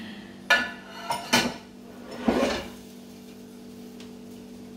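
Metal kitchenware clattering: a frying pan and tongs set down with a few sharp, ringing clanks in the first second and a half, then a brief scrape, over a faint steady hum.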